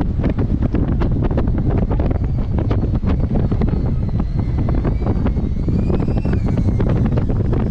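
Hurricane-force wind buffeting the microphone: a loud, constant low rumble with irregular gusting thumps. In the second half a faint high whine rises and falls in pitch.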